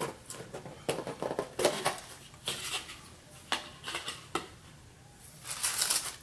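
Rigid cardboard gift box and lid being handled: a series of light knocks and taps as the lid is lifted off and stood up, then tissue paper rustling near the end.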